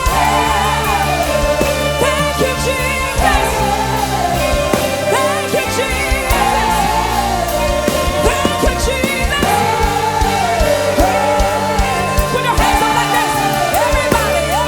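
Music with steady sustained bass notes under a lead melody line that bends and wavers in pitch.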